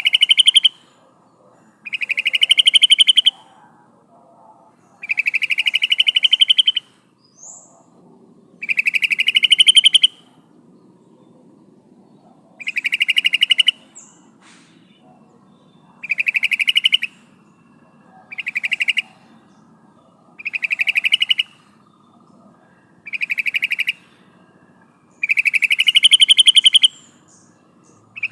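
Female yellow-vented bulbul (trucukan) calling to attract a male: a fast chattering burst about a second long, repeated about ten times at intervals of two to three seconds.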